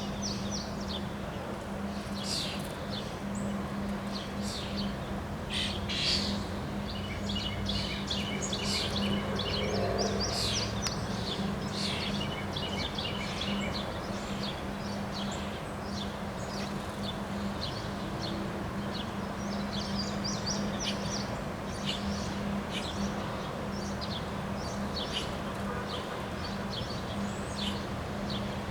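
Several birds chirping and trilling in short repeated calls, over a steady low hum and a constant low rushing background noise.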